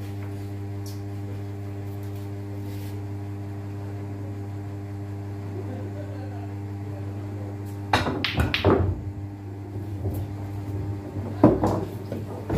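A steady low electrical hum, then a sharp click of a pool shot about eight seconds in, followed by a brief burst of voices and ball sounds. Another hard knock comes about a second before the end.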